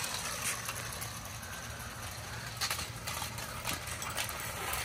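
Battery-powered robot crab toy's small electric motor and gears running steadily as it walks on concrete, with a few short clicks around the middle.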